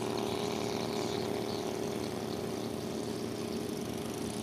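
An engine running steadily at idle, an even hum that holds the same pitch throughout.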